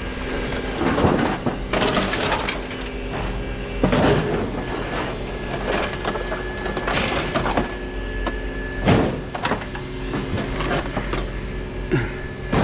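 Irregular cracking and clattering impacts, as of junk being broken apart or handled, over a steady engine hum.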